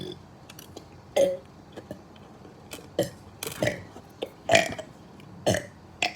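A person burping over and over: a series of short, separate burps, about five or six in six seconds, with the loudest ones coming in the second half.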